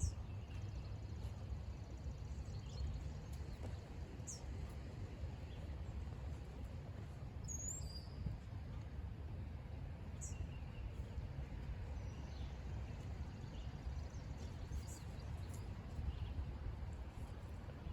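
Steady low outdoor background rumble, with a few short, high bird chirps spaced several seconds apart.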